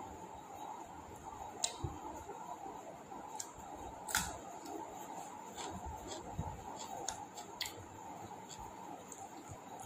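A person eating biryani: chewing and small wet mouth clicks, scattered unevenly, the loudest about four seconds in, over a faint steady hiss.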